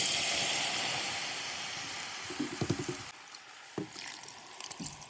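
Hot oil sizzling in a cooking pot. It starts with a sharp hiss and dies down over about three seconds, followed by a few light clinks of the pot and utensils.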